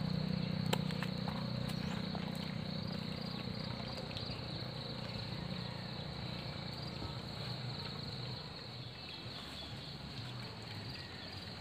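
Steady high-pitched chorus of insects. Underneath it is a low hum that fades gradually and drops off about two-thirds of the way through.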